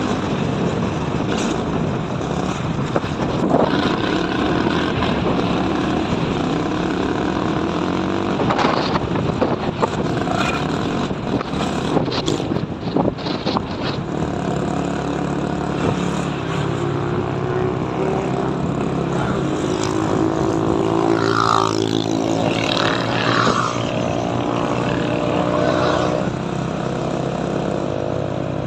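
A car driving on the road, with steady road and engine noise. About halfway through, an engine note comes up that rises and falls in pitch, and there are a few sharp clicks or knocks earlier on.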